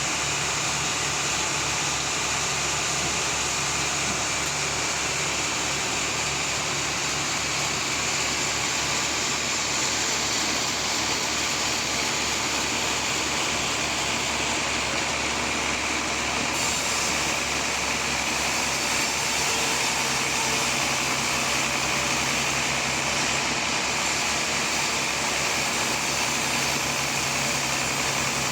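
Sawmill machinery running steadily, a continuous mechanical drone with hiss, with a slight change in its tone about two-thirds of the way through.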